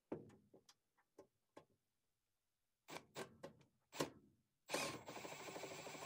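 A few light clicks and taps of tool handling, then near the end a cordless screwdriver starts running steadily, backing out the screw that holds the furnace's flame sensor.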